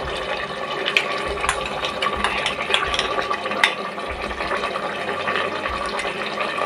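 Mutton and its juices bubbling and sizzling in an open pressure cooker on the flame, under freshly added yogurt. A steady sizzle with scattered sharp pops.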